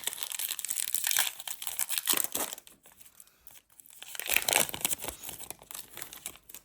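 Crinkly plastic wrapper of a trading card pack being torn open and crumpled by hand, in two spells of crackling with a short lull between.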